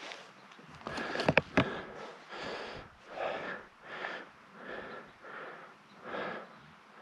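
A person breathing hard and fast, short panting breaths about once a second. A few sharp clicks or knocks about a second in are the loudest sound.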